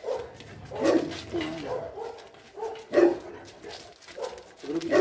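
St. Bernard barking, a handful of separate barks a second or two apart, the loudest about a second in and about three seconds in.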